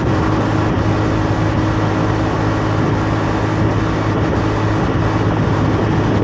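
Honda Navi 110's small single-cylinder engine running steadily while riding, under a constant rush of wind and road noise.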